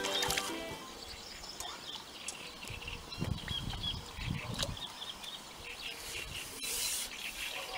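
Background music ending about half a second in, then outdoor lakeside ambience: small birds chirping repeatedly over low uneven rumbling, with a single sharp click near the end.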